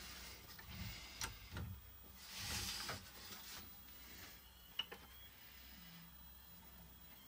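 Faint handling sounds as a hand positions a Lowrider CNC router's gantry over a wooden board: a light click about a second in, a brief scraping slide a little later, and another click past the middle.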